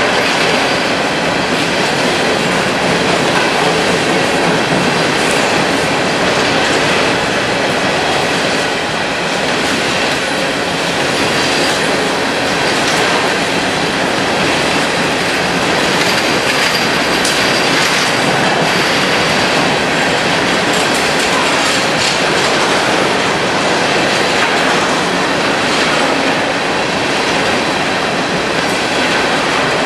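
Freight train coal hopper cars rolling steadily past close by: a loud, continuous rumble of steel wheels on rail, with clicks over the rail joints and a faint high wheel squeal now and then.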